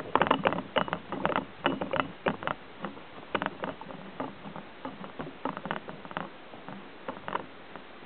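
Birds at a tube seed feeder with a metal tray: rapid, irregular clicks and taps. The clicks are loudest as a bird takes off from the tray and thin out toward the end.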